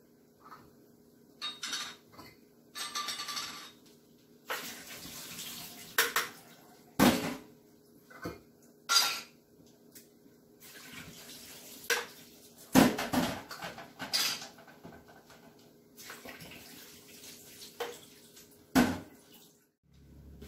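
Cans and dishes clinking and knocking now and then on a kitchen sink and counter, with a few short stretches of liquid pouring as canned fruit is drained.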